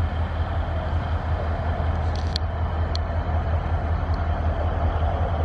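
Diesel locomotive engine running steadily as the train approaches: a low rumble with a steady drone over it. Two brief high chirps sound about two and three seconds in.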